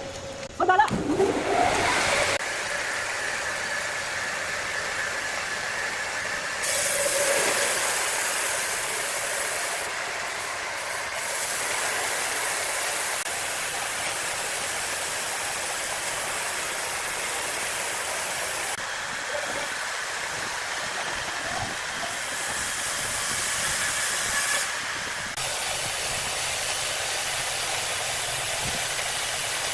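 Large industrial wood saw running and cutting through timber: a steady hissing noise with a faint high whine, after a short, loud burst about a second in.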